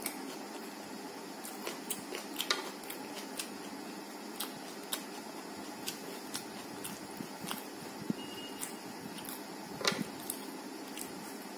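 Fingers tearing thin rumali roti and scooping tarka on a plate: soft tearing and squishing with scattered small clicks and taps, the sharpest near the end, over a steady low hiss.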